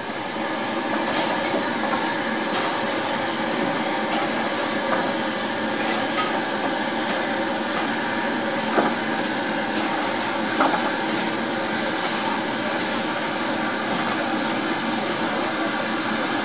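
Pennsylvania Railroad No. 643, a 1901 0-6-0 steam switch engine, hissing steam steadily while it stands, with a few light metallic knocks around the engine, two of them past the middle.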